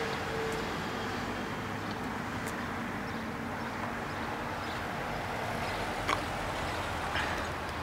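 Steady outdoor road ambience, a hum of traffic, with a short sharp click about six seconds in.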